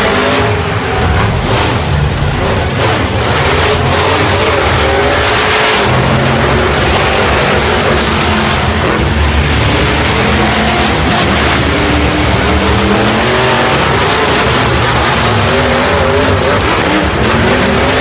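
Several monster truck engines running loud as the trucks drive around the arena floor, their pitch rising and falling.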